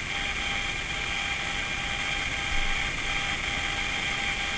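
A steady mechanical hum with a thin, constant high whine on top, unchanging throughout.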